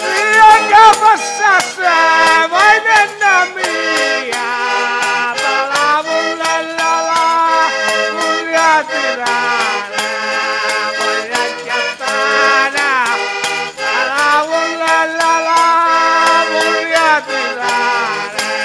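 Organetto (diatonic button accordion) playing a traditional folk tune, with a man singing over it in wavering, gliding phrases.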